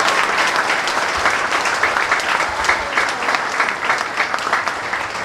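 A large indoor audience applauding steadily, many hands clapping at once in a full hall.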